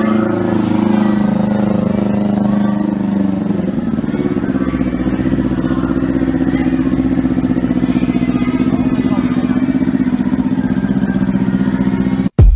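Motorcycle engine running steadily through a Yoshimura carbon aftermarket exhaust. Its note changes about four seconds in, settling into a steadier, deeper rumble.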